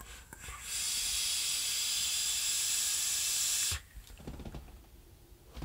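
A long draw on a Rashomon rebuildable dripping atomiser with a single 0.54-ohm, 24-gauge stainless steel coil fired at 45.5 watts: a steady high hiss of air rushing through the open, non-adjustable airflow and the sizzling coil for about three seconds, cutting off abruptly, then a soft exhale.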